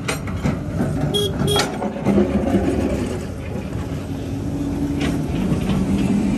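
Motor scooter running as it rides over a rough, loose gravel road, with the engine and tyre noise from the stones blending into a steady rumble. A few short, sharper high sounds come about a second in.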